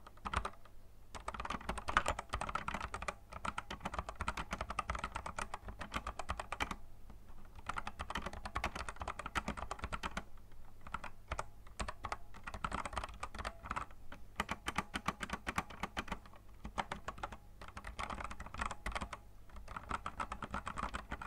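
Fast typing on a Digital Alliance Meca Fighter ICE SE mechanical keyboard with Outemu Brown tactile switches: continuous runs of key clicks, broken by brief pauses every few seconds.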